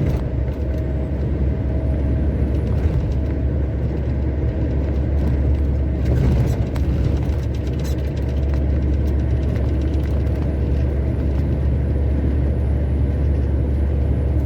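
Heavy truck's diesel engine and road noise heard from inside the cab, a steady low drone as it pulls a lowboy trailer with an oversized load.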